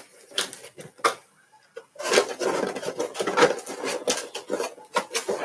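Trading-card packs being picked up and handled: a few separate light clicks, then about two seconds in a busy run of rustling and light knocks as the packs are gathered.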